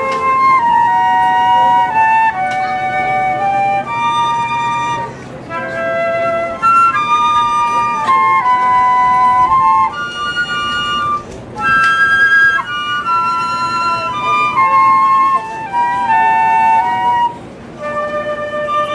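Solo concert flute playing a slow melody of held notes, in several phrases with short breaks between them.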